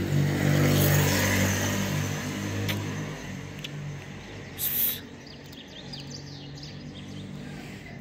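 A car passing close by, its engine hum loudest in the first second or so and fading away by about three seconds in. Small birds then chirp faintly, with one brief burst of hissing noise about halfway through.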